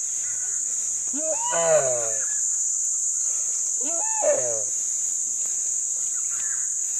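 A deer screaming twice in distress as it is eaten alive by a Komodo dragon. Each cry lasts about a second and falls in pitch, the second coming about two and a half seconds after the first.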